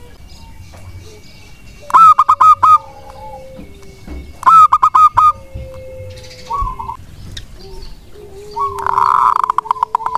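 Zebra dove cooing in short bursts of four or five quick staccato notes, about two seconds in and again about halfway, then a longer, louder rapid burst near the end. A lower drawn-out note runs beneath the bursts.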